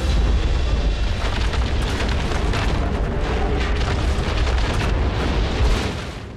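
Loud, deep rumbling with crackling of breaking rock as a large buried structure is torn out of a cliff face. It starts abruptly and fades out near the end.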